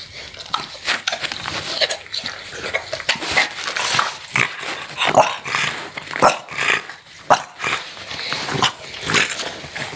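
French bulldog puppy vocalizing close to the microphone: a quick, irregular string of short whines and grunts with a few brief yips.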